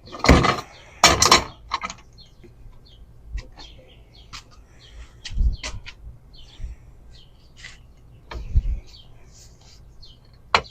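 Scattered knocks and clatter of metal pieces and tools being handled, the two loudest near the start, with a sharp click near the end. Birds chirp faintly in the background.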